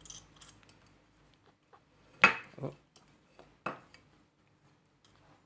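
A few sharp clinks and knocks of small hard objects being handled, the loudest a little over two seconds in, in a quiet small room.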